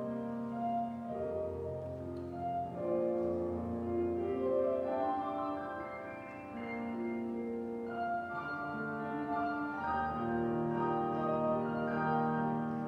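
Church organ playing slow instrumental offertory music in sustained chords, the notes changing about once a second.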